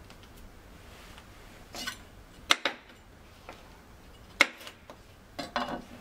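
Kitchen knife cutting a red pepper on a chopping board: a few sharp knocks of the blade striking the board, two about two and a half seconds in and one about four and a half seconds in, with softer cutting knocks around them.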